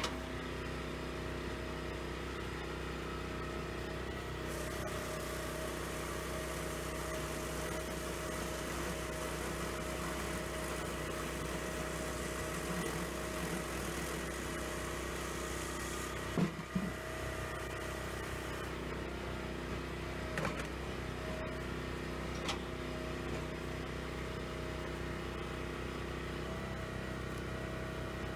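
Firewood processor's engine running steadily, with a few short knocks a little past halfway through.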